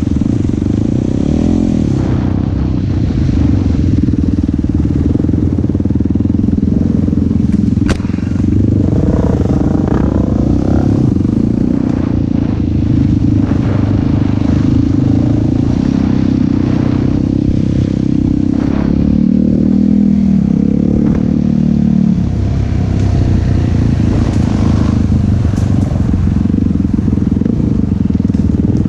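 Quad ATV's single-cylinder four-stroke engine running continuously while ridden, its pitch shifting with the throttle, with one sharp knock about eight seconds in.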